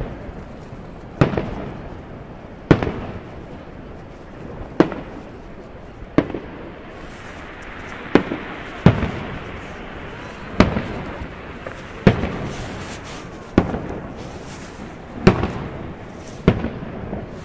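Fireworks shells bursting in the air, a sharp bang about every one and a half seconds, each trailing off. Crackling stars fizz in the middle of the stretch.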